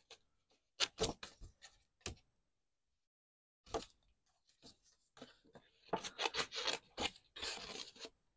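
Small scissors snipping around flower heads stamped on cardstock, in short, quick cuts. There is a cluster of snips about a second in, a single one near the middle, and a denser run of cutting in the last few seconds.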